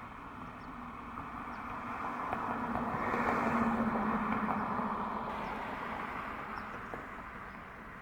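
A road vehicle passing by, its engine and tyre noise swelling to a peak about halfway through and then fading away.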